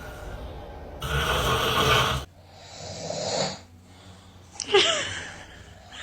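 A man snoring: a loud snore starting about a second in and lasting just over a second, then a softer breath, and a short pitched vocal sound near the end.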